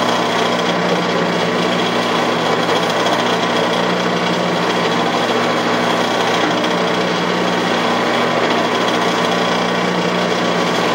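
Metal lathe running steadily, its motor and spinning chuck giving a constant hum while a tailstock-held cutter bores into a muzzleloader breech plug.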